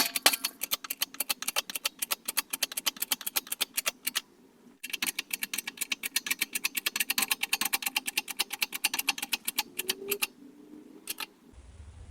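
Rapid, even metal-on-metal clicking, about eight to ten clicks a second, in two long runs with a short pause after about four seconds, as a Dana 30 carrier bearing is worked onto the carrier.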